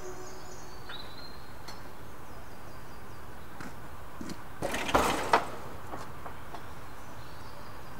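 Steady outdoor background noise with a few faint bird chirps. About five seconds in comes a brief loud hiss that ends in a sharp click.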